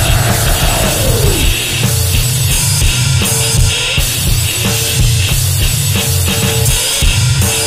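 Extreme goregrind noise music: loud, distorted drums and guitar over harsh noise. A pitch sweep rises and falls in the first second and a half, then a short tone repeats over the pounding drums.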